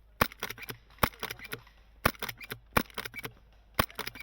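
Airsoft gun firing single shots: five sharp cracks about a second apart, each trailed by a few fainter clicks.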